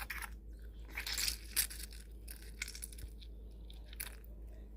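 Half a lemon being squeezed by hand, its pulp giving a few short, wet crunching squelches as the juice goes into the sauce.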